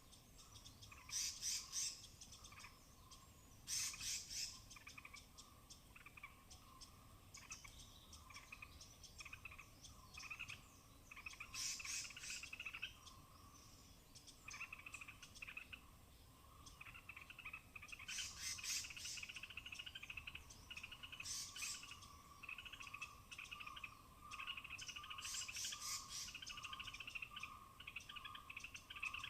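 A forest chorus of high-pitched chirping and chittering calls, coming in repeated short bursts over a steady, rhythmically pulsing trill.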